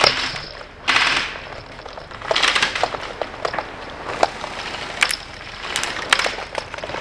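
Scattered airsoft gunfire: irregular sharp snaps, with a few short noisy bursts mixed in.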